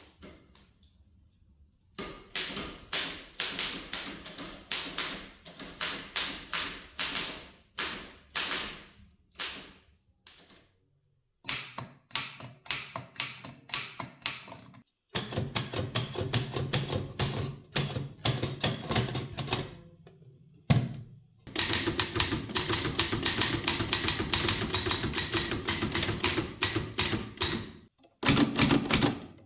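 Typewriters being typed on, several machines one after another: sharp typebar strikes, slow and spaced at first, then fast, dense typing in the later stretches, with short silences between machines. The first two seconds are nearly silent.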